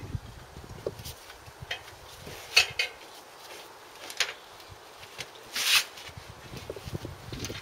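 Metal hand tools clinking and clanking on metal parts in scattered, uneven knocks. There is a sharp clatter about two and a half seconds in and a longer, louder rattle just before six seconds in.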